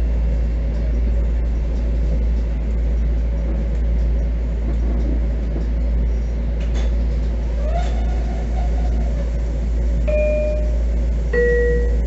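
Steady low rumble and hum inside a Bombardier M7 electric railcar. Near the end comes a two-note electronic chime, high then low, after a short rising whine about two-thirds through.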